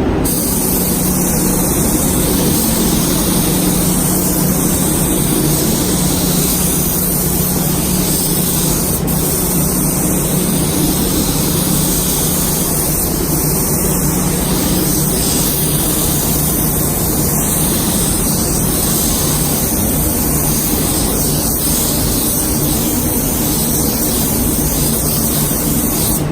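Compressed-air spray gun spraying primer: a steady hiss of air and atomised paint that starts abruptly as the trigger is pulled and cuts off near the end, over a steady low hum.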